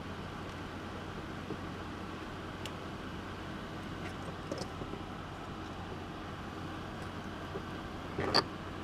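Steady background hiss with a low mains hum, and a few faint ticks from small electronic parts being handled on the workbench. A brief louder click and rustle comes near the end.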